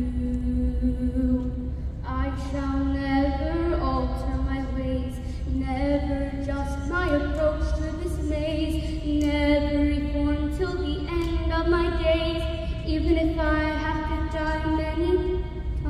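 A young female soloist singing slow, long held notes through a microphone and PA, with no clear words.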